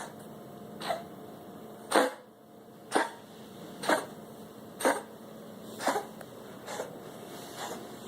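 A pet's fit of coughing: eight sharp coughs about once a second, loudest about two seconds in and growing weaker after. The owner is not sure it is a cough.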